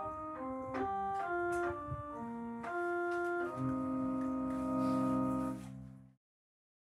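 Electronic keyboard playing a short melody of single held notes, then a sustained closing chord. The music cuts off suddenly about six seconds in.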